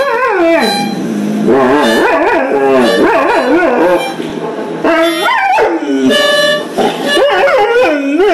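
A dog howling and yipping in several long bouts, its pitch wavering and sliding up and down, with short breaks between bouts.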